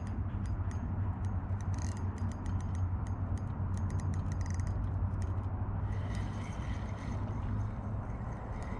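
Fishing reel clicking irregularly as line is wound in a fish, over a steady low rumble.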